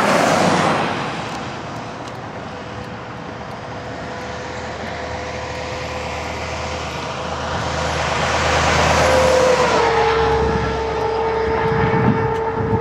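Cars passing close by on a highway. One rushes past at the start, and a second approaches and is loudest about eight to nine seconds in, its hum dropping slightly in pitch as it goes by and then holding steady.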